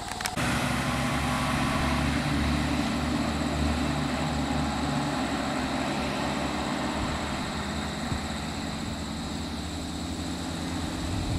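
Vehicle engine idling steadily, a low hum that begins after two sharp clicks at the very start.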